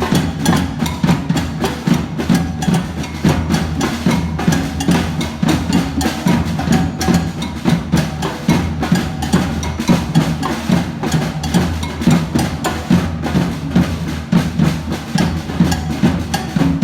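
Drum band playing a steady, driving groove of many drums struck together, with a dense run of beats.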